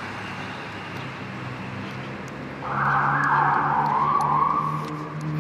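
Street traffic, with a motor vehicle passing close by on the road: its engine swells up suddenly a little over halfway through and fades away near the end.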